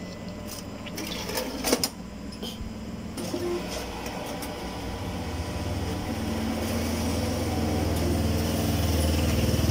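Hitachi cash deposit ATM's banknote mechanism: a few sharp clicks in the first two seconds, then a steady, fast mechanical whirr that starts about four to five seconds in and grows louder as the machine counts the deposited banknotes.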